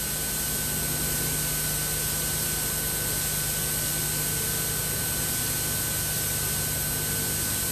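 Steady recording hiss with a low hum and a faint thin high tone running through it. No tool or engine sounds are heard.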